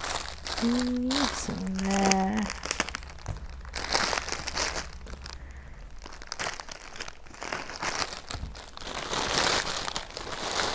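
Plastic packaging crinkling and rustling as it is handled and pulled open to unwrap clothes, with irregular crackles throughout. Two short voice sounds come in the first couple of seconds.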